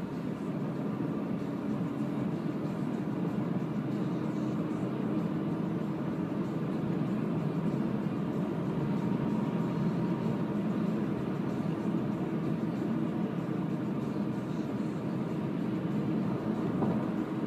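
Steady tyre and wind noise inside a Renault ZOE electric car driving at speed on asphalt, with no engine note, slowly getting a little louder.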